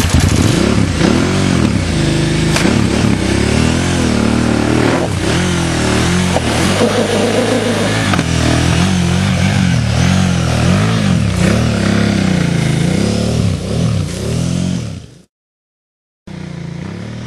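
Adventure motorcycle engine revving hard, its pitch rising and falling again and again as the bike labours under load up a steep dirt climb. The sound cuts off suddenly about fifteen seconds in.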